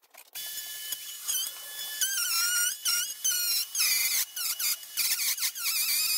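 Bosch 12-volt cordless trim router starting up, then its bit cutting the edge of a wood and epoxy board. The high whine gets louder and wavers in pitch under load from about two seconds in, with several brief dips.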